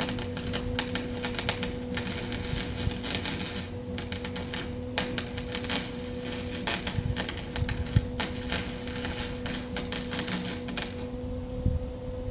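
Arc welding on steel cattle-panel wire: a rapid crackle in several runs with short pauses, stopping about eleven seconds in. A steady hum sounds underneath throughout.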